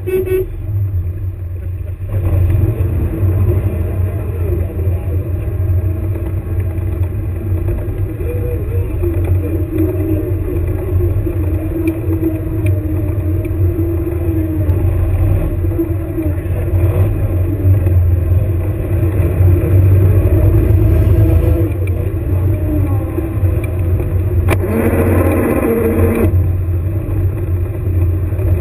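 Engine of an airsoft combat vehicle running as it drives, a steady low drone with a wavering pitch above it, and a louder stretch of about a second and a half near the end.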